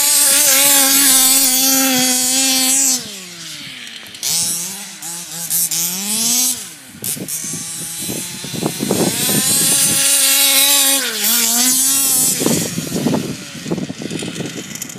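Small two-stroke petrol engine of a large-scale RC buggy revving hard and easing off under throttle. The revs are held high for about three seconds, drop, climb again, and come back up high about ten seconds in before falling away.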